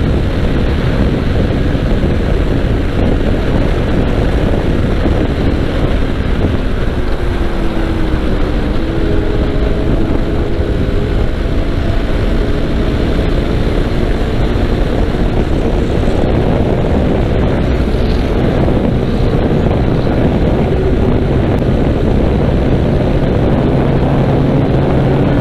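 KTM RC 390's single-cylinder engine running at highway speed under a loud, steady rush of wind over the microphone. A faint engine note rises and falls in places.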